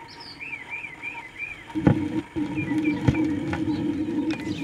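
Birds chirp for the first second and a half. About two seconds in, the stylus of a vintage Magnavox console stereo is set down on an LP with a thump through the speakers, and a click follows a second later. The record then plays as a steady low tone, on a turntable whose hardened rubber idler wheel is not getting enough traction to keep it up to speed.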